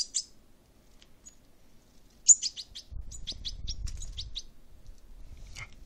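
European goldfinch chick giving high, sharp begging chirps while being hand-fed from a stick. A short cluster comes at the start, then a quick run of about a dozen chirps a little over two seconds in.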